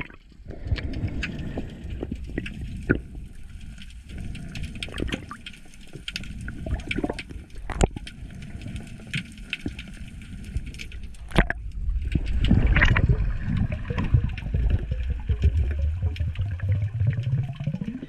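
Underwater water noise as a freediver descends: a low, muffled rushing and gurgling, dotted with scattered sharp clicks, growing louder in the second half, with a low hum rising in pitch near the end.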